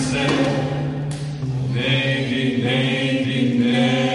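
Voices singing a few long, held chant-like notes, each held for a second or more before moving to the next.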